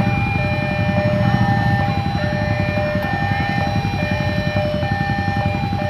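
Electronic railway level-crossing warning alarm sounding, a steady two-tone signal switching back and forth between two pitches, which warns that a train is approaching. A steady low rumble runs underneath.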